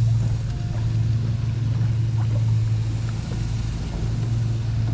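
A boat motor humming steadily at a low pitch, dipping for a moment a little after three seconds in.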